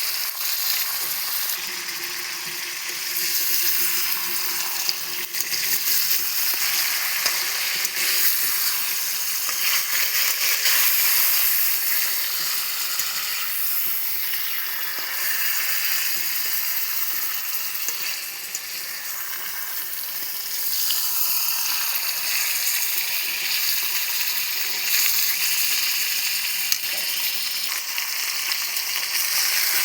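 Chicken frying in hot oil in a pan: a steady sizzle that swells and eases a little, with an occasional faint click.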